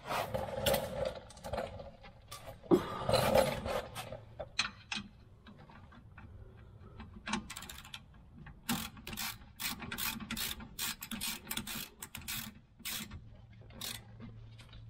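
Ratchet wrench clicking as it turns in a brake caliper mounting bolt, a long run of quick even clicks, about three or four a second, in the second half. Metal tool clanks and handling sounds come before it, around the start and about three seconds in.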